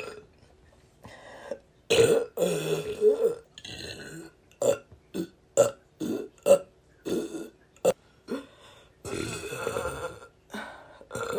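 A person burping over and over: a long, loud burp about two seconds in, a quick run of short burps about every half second, then another long burp about nine seconds in, with a few shorter ones near the end.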